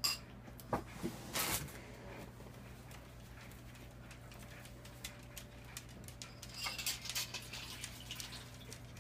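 Scattered light clicks and rattles of a dishwasher's wire rack and plastic tub as a kitten climbs over them, with a busier patch about a second and a half in and another near seven seconds, over a steady low hum.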